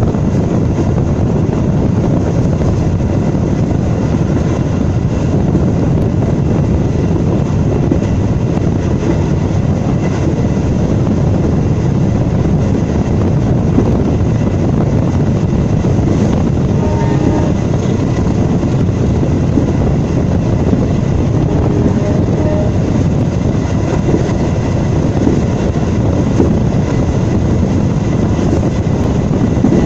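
Passenger train running at speed, heard from an open doorway: a loud, steady rumble of wheels on the rails mixed with the rush of air past the carriage.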